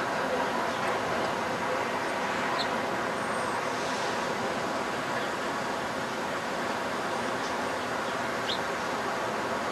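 Steady city traffic noise, with two short high chirps.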